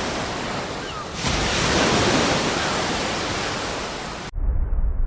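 Recording of ocean waves breaking, with a few faint seagull calls, playing as a steady full-range rush of surf. About four seconds in it cuts suddenly to a muffled version with the high end gone and a heavier low rumble: the same surf filtered to simulate Mars's thin carbon dioxide atmosphere, which absorbs high-pitched sound.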